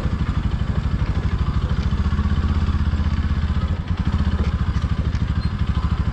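Bajaj Pulsar NS200's single-cylinder engine running steadily under way on a rough dirt road, with an even, rapid exhaust pulse. It dips briefly just before four seconds in.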